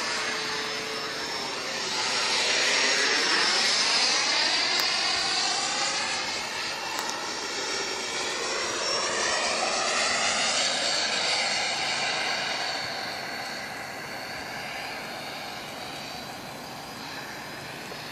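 Freewing F-16 RC jet's electric ducted fan whining as the model flies past. It is a high-blade-count fan that sounds like a turbine. Its pitch sweeps as it passes; it is loudest twice, about 3 and 10 seconds in, then fades as it flies off.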